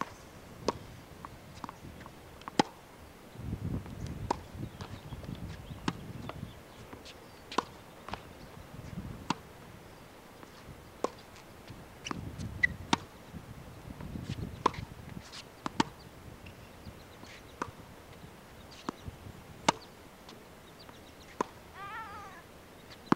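Tennis balls struck with a racket and bouncing on a hard court, sharp pops every second or two, with stretches of low rumbling noise in between. A short wavering call sounds near the end.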